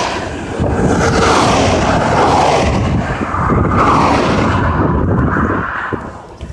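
A police-escorted motorcade passing close at speed: a loud rush of engines and tyres, with a siren wailing up and down over it. The noise dies down near the end as the vehicles go by.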